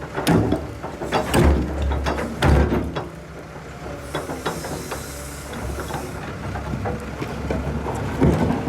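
A diesel excavator engine working under load, with three heavy knocks in the first three seconds as loads are dumped into the dump truck's box. A high hiss comes in about four seconds in and lasts about two seconds.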